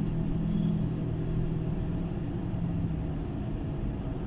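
Tour coach's engine running steadily, heard from inside the cabin while the coach waits in a queue.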